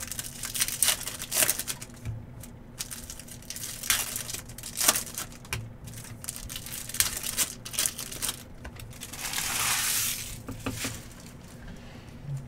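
Trading-card pack wrappers crinkling and being torn open, with short sharp rustles and clicks throughout and a longer tearing rip about nine to ten seconds in.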